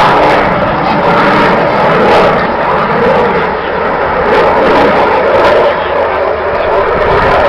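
F-16 fighter jet's engine noise during aerobatic manoeuvres: a loud, steady jet rush that eases slightly in the middle and builds again near the end.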